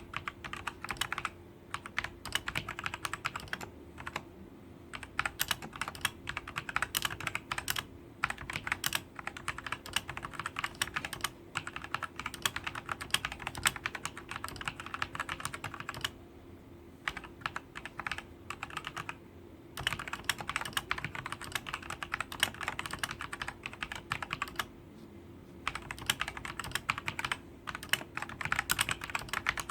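Typing on a Royal Kludge RK Sink104Pro mechanical keyboard with Cherry MX Red switches: fast runs of key clacks broken by short pauses every few seconds. A faint steady hum lies underneath.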